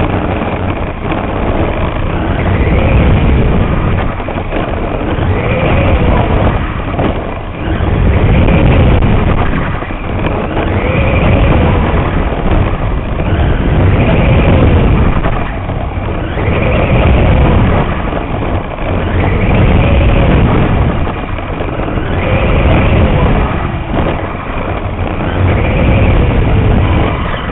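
Onboard sound of a radio-controlled mini late model car lapping a dirt oval. Its motor whine rises and falls in pitch about every three seconds as it speeds up and slows around the track, over a steady rumble of the chassis on the dirt.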